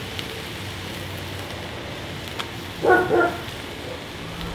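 A dog barking twice in quick succession, about three seconds in, over a steady background hiss.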